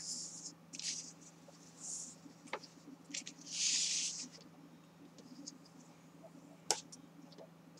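Kraft cardstock sliding and rustling on a cutting mat as it is handled and creased with a bone folder: a few short swishes, the longest about halfway through, and two light taps.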